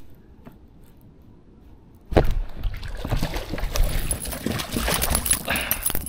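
A hooked bass thrashing and splashing at the surface beside a kayak, starting suddenly about two seconds in as a dense, continuous clatter of splashing.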